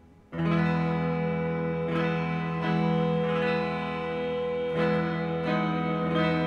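Music: a guitar played through effects comes in loud and sustained about a third of a second in. A chord of many held notes rings on, struck afresh every second or so.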